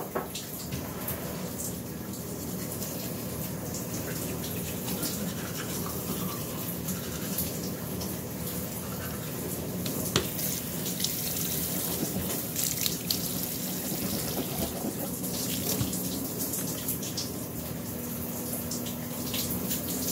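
Shower running behind a closed curtain: a steady spray of water, with a single sharp click about halfway through.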